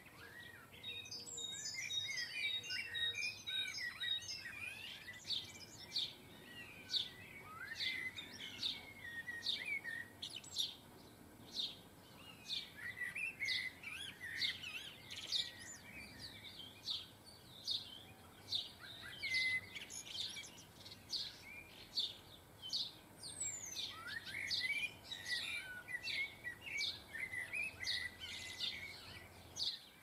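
Juvenile European goldfinches chirping and twittering at a feeder: a steady run of short high chirps, about two a second, with softer gliding twitters among them.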